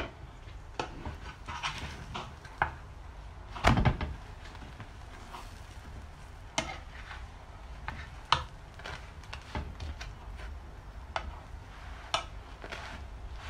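Metal spoon and spatula tapping and scraping against a flat tawa while spreading ghee and oil over a frying chapati, in irregular clicks and knocks. The loudest knock comes a little under four seconds in.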